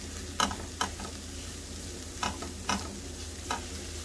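Spatula scraping and knocking against a non-stick frying pan while stirring chicken, onion and flour frying on low heat, over a faint steady sizzle. About five sharp scrapes come at uneven intervals, the loudest near the start.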